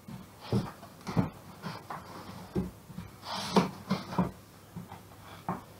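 Cardboard box flaps and the papers inside being handled: an irregular series of rustles, scrapes and soft knocks.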